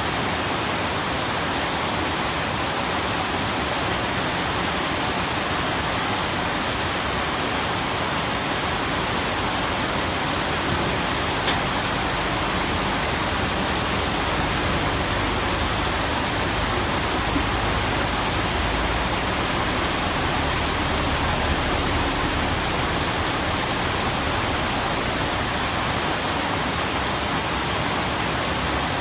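Steady, dense rain, an even hiss with no single drops standing out. A low rumble swells under it for several seconds midway.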